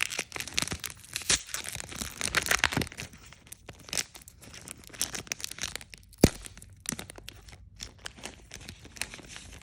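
Crinkly card packaging being torn open and handled, a dense run of crackling and tearing that is busiest in the first three seconds, with one sharp tap about six seconds in.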